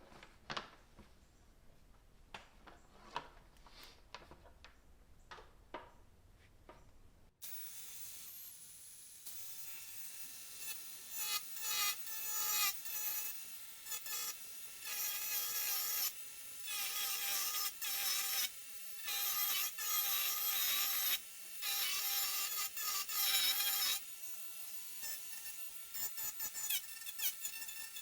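Merlin2 miniature angle grinder fitted with its tiny chainsaw disc, starting about seven seconds in with a steady high whine. From about ten seconds on, the chain cuts cherry wood in repeated short, louder rasping passes, then lighter, briefer touches near the end. Faint clicks of handling come before the motor starts.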